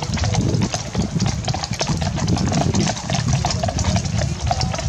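Several horses walking close by, their hooves making many short uneven clip-clops over a steady low rumble.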